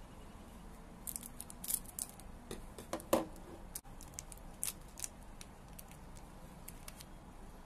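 Thin clear plastic snack wrapper crinkling and crackling as it is pulled open by hand: a run of sharp crackles, loudest about three seconds in, then dying away.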